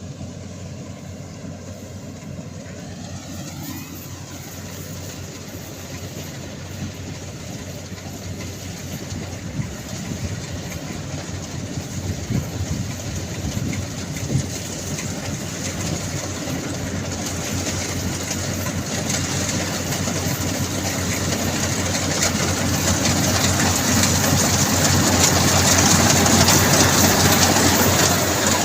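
Heavy engine of farm machinery running steadily, growing louder toward the end.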